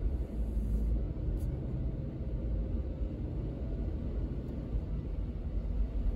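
Low, steady rumble of a car driving at low speed, heard from inside the cabin: engine and tyre noise on a wet road.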